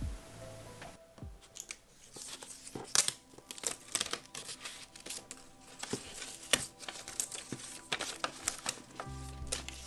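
Paper crackling and tearing as the cut-out waste sheet is peeled off a sticky light-grip cutting mat, a run of irregular crackles starting about a second in.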